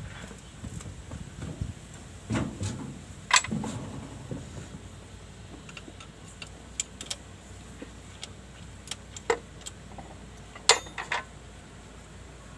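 Scattered metallic clicks and knocks of tools and parts being handled during repair work, with no engine running. The loudest knock comes about three seconds in, and a quick run of three clinks comes near the end.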